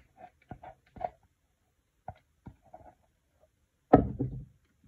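A silicone spatula scraping thick lotion from a plastic container and dropping it into a bag-lined glass cup: a run of soft scrapes and light taps, then one sharp knock about four seconds in.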